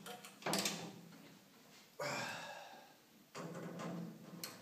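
Hand tools and bolts clinking and scraping against the steel end plate of a swather header as bearing bolts are fitted, with a sharp clank about two seconds in that rings away over a second.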